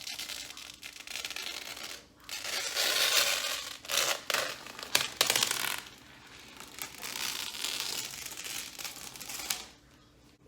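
Protective plastic film being peeled off a PC case, crinkling and crackling, with a few louder rips between about two and six seconds in.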